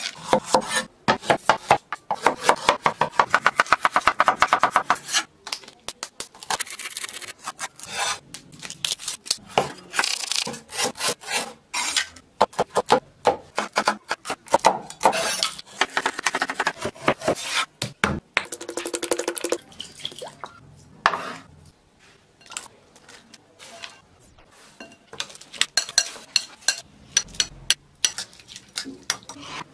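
Steel cleaver chopping and shredding vegetables and chillies on a wooden cutting board, in fast runs of sharp knocks with blade scrapes between. Near the end, a metal spoon clinks and scrapes while mixing salad in a glass bowl.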